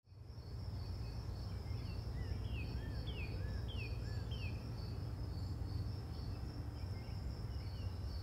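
Quiet outdoor ambience fading in: insects chirping in a steady, evenly pulsing high trill, and a bird whistling a handful of short falling and arched notes between about two and four and a half seconds in, over a low steady rumble.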